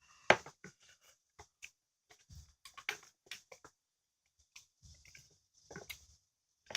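Mouth sounds of someone eating instant ramen noodles: irregular wet chewing and smacking clicks, the loudest a sharp click just after the start.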